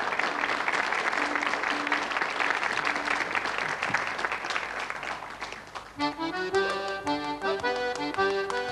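Audience applause, then an accordion starts playing a traditional Irish dance tune about six seconds in.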